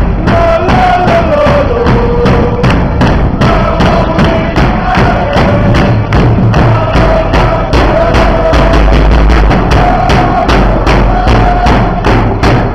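Football supporters' drums beating a steady rhythm of about four beats a second as a marching crowd of fans sings a chant, loud throughout.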